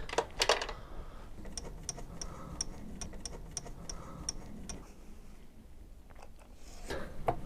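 Ratchet wrench clicking in a quick run of short, even ticks for about three seconds while a slack exhaust mounting bolt is backed off. Near the end there is a louder rustle of handling.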